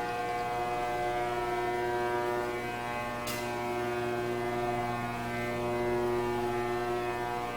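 Steady, layered mechanical drone of many held tones, like boiler-room machinery hum, with one short click about three seconds in.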